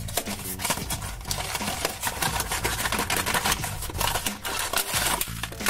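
A small cardboard box being torn open by hand: paper tearing and the cardboard flaps crackling and scraping in quick, irregular clicks.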